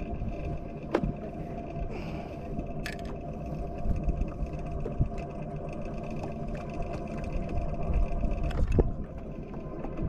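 Boat motor running steadily at trolling speed, a low rumble with a faint steady whine. A few sharp clicks stand out, about a second in, near three seconds and near the end.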